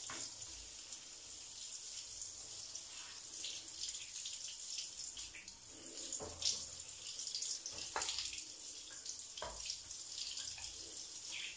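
Water from a shower head spraying steadily onto a range-hood grease filter, rinsing the cleaner off it. Three short knocks come in the second half.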